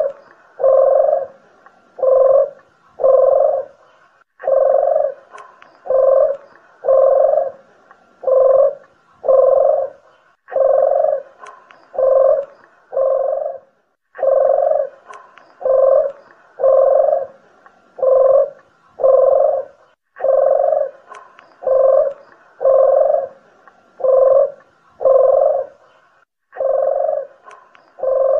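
Collared doves cooing: a long series of low, hollow coos about one a second, in runs of four to six with short pauses between the runs.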